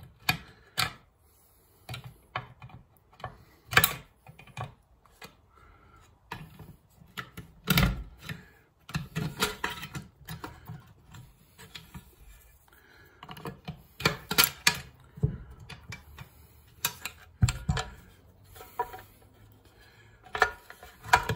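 Irregular clicks and taps of hand tools working a tiny hinge pin out of a 1984 Corvette fuel door hinge, pulling the pin through, coming in clusters with short pauses between.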